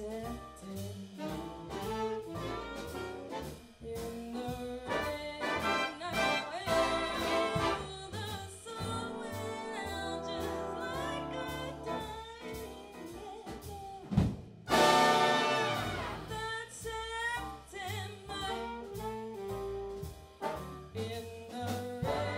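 A big jazz band's brass and saxophone sections playing together over a steady swing rhythm, with a loud full-band accent about two-thirds of the way through.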